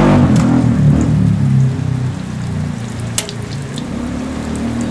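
Hotteok sizzling as they fry in shallow oil on a flat griddle, over background music whose low notes are louder for the first two seconds and then fall back. A sharp click sounds about three seconds in.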